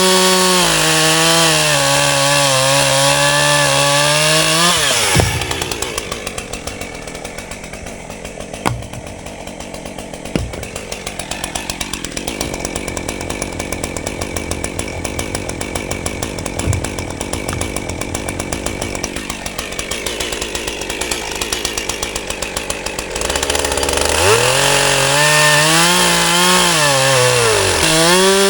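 Chainsaw bucking a log into firewood rounds: running at high revs with its pitch sagging and recovering under the cut, dropping to idle about five seconds in, idling for a long stretch with a few knocks, then revving up and cutting again near the end.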